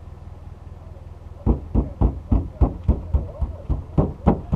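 Footsteps of someone running, about a dozen heavy thuds at roughly four a second starting a second and a half in, over the steady low hum of a vehicle engine idling.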